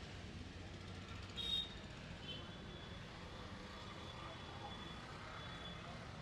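Street traffic: a steady low rumble, with a short, loud high-pitched sound about one and a half seconds in and fainter high tones later.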